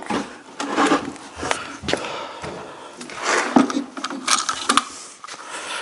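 Irregular knocks and scrapes of a chipboard cabinet carcass being handled in a long metal bar clamp as the clamp is worked.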